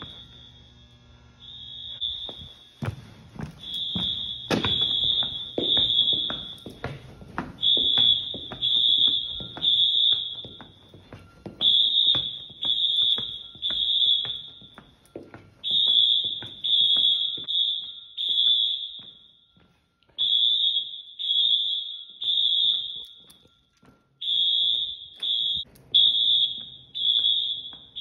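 High-pitched Wheelock fire alarm horns sounding during an alarm test, beeping in repeated groups of three with short pauses between groups.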